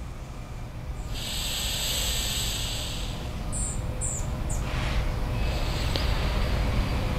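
Alternate-nostril breathing: a steady hiss of breath through one nostril lasting about two seconds, followed by a softer breath, over a low rumble of traffic that grows louder near the end.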